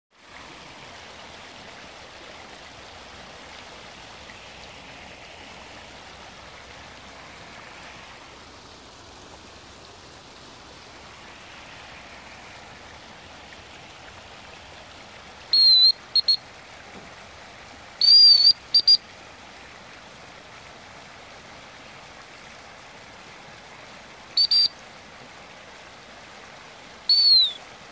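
Floodwater rushing steadily across a flooded road and churning white where it pours past a footbridge. About halfway through, short, loud, high whistles break in: a pair, then a quick run of three, then single whistles twice more near the end.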